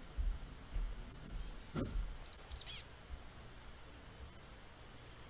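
Chestnut-backed chickadee calling twice. Each call is a thin, high held note followed by a quick run of falling notes, the first about a second in and the second near the end.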